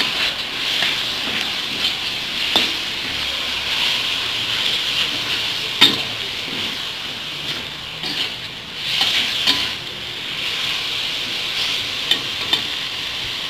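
Shredded root vegetable and sliced beef sizzling in a wok while a spatula stirs and scrapes them, with a few sharp clinks of the spatula against the pan.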